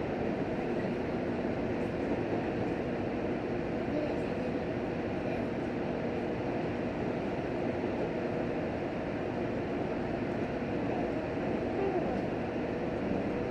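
Steady running noise inside the cabin of an H100 diesel-electric railcar under way: a continuous rumble of wheels on rail with the drone of the engine and motors.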